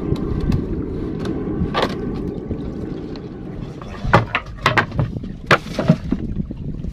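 Low wind rush on the microphone and lapping water around a small wooden boat, then from about four seconds in a quick run of sharp knocks and clicks as a fishing longline is hauled in by hand over the boat's side.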